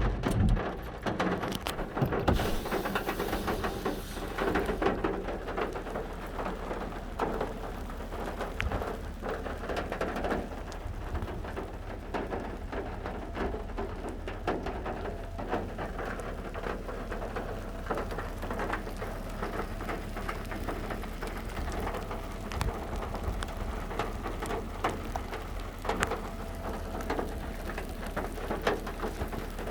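Rain falling steadily, a dense patter of many drops striking a surface.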